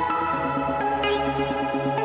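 Electronic background music with a steady pulsing beat and a bright hit about a second in.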